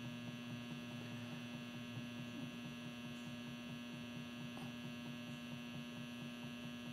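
Steady electrical hum from a battery charger driving DC current through an HHO electrolysis cell, running at its amperage limit.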